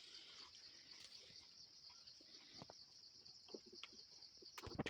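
Near silence with the faint, steady pulsing trill of crickets, a few light ticks, and a sudden louder clatter right at the end.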